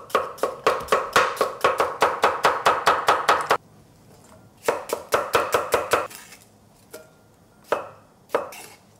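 Chef's knife chopping julienned cucumber on a wooden cutting board in fast, even strokes, about five a second. After a brief pause comes a second quick run of chops, and near the end a few single knife strikes on the board as cherry tomatoes are halved.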